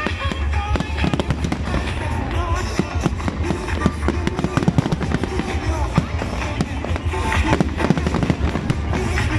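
Fireworks going off in quick succession, with many sharp bangs and crackles, over loud music with a heavy bass.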